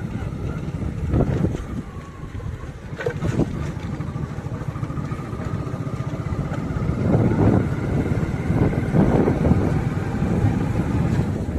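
A motor vehicle's engine running steadily, with wind buffeting the microphone and surges of rumble in the second half.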